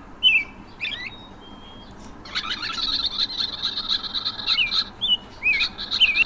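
Small birds chirping with short warbled whistles. A fast, buzzy trill starts about two seconds in, runs for a few seconds, and starts again near the end, with a few sharp clicks scattered through.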